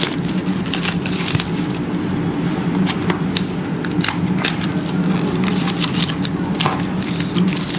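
Trading cards and a card pack being handled: scattered sharp clicks and crackles of card stock and wrapper, over a steady low hum.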